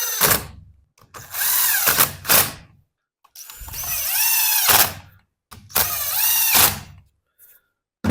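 Power drill driving screws into a chainsaw's recoil starter cover: the tail of one run, then three short runs, its motor whine rising and falling in pitch within each.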